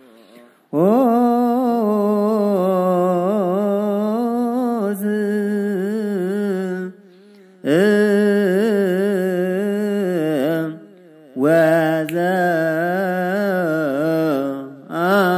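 Ethiopian Orthodox Ge'ez hymn chant (mezmur) in the zimame style, sung by a single voice in long, wavering melismatic phrases with no accompaniment, pausing briefly for breath about seven and eleven seconds in.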